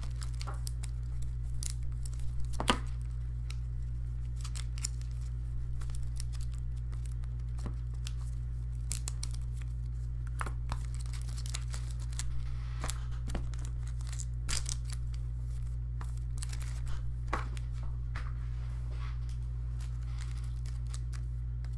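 Sports cards and plastic card holders being handled and sorted: scattered light clicks, slides and crinkles, over a steady low electrical hum.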